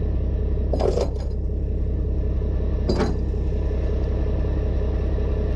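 Diesel engine idling steadily, with two brief clanks, about one and three seconds in.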